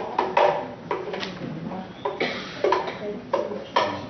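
A spatula scraping and knocking against the inside of a plastic blender jar to get out thick mashed garbanzo bean spread. There are about eight sharp, irregular knocks, each ringing briefly.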